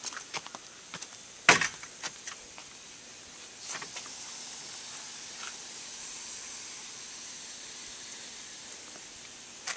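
A few small clicks and one sharp knock about a second and a half in, then from about four seconds a steady hiss of water spraying from a garden hose nozzle onto the plants.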